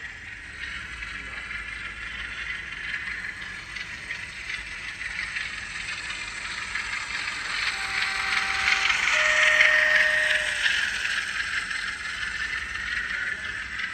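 Graham Farish N gauge Class 47 model running under DCC sound: a Zimo decoder plays the Class 47 diesel engine sound through the small factory-fitted speaker, over the rattle of the model running on the track. The sound is loudest about ten seconds in, and near the middle a faint two-note horn sounds, high then low.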